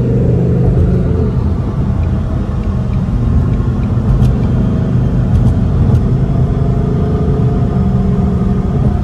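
Ford Mustang cruising at road speed, heard from inside the cabin: a steady low drone of engine and road noise.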